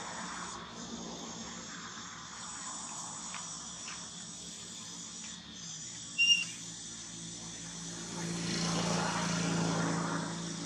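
Steady chirring of insects. A short high chirp about six seconds in, then a broader rushing sound swells and fades over the last few seconds.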